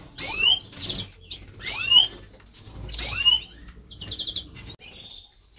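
Small finches in a breeding aviary calling: the same quick falling chirp three times, about every second and a half, with brief fast trills in between.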